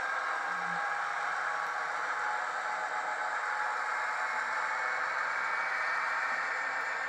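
Roco H0-scale model of a PKP ST44 diesel locomotive running slowly, its motor and gears giving a steady whirring hiss.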